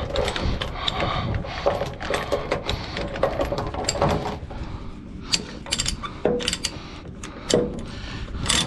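Heavy steel tie-down chain clanking and rattling as it is pulled through the hands and hooked to a ratchet chain binder. Separate sharp metallic clicks from the binder follow in the second half.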